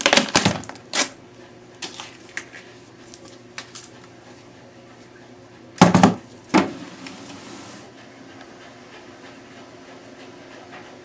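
Knocks and small clicks of metal and plastic computer parts being handled and pulled apart, loudest at the start and with a heavy knock about six seconds in, over the steady hum of a running clothes dryer.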